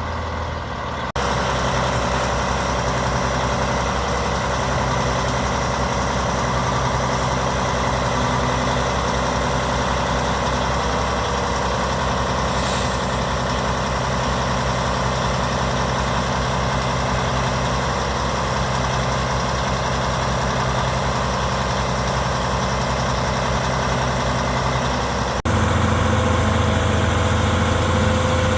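Large diesel engine of an Albach Diamant 2000 wood chipper running steadily with a deep drone. The sound changes abruptly about a second in and again near the end.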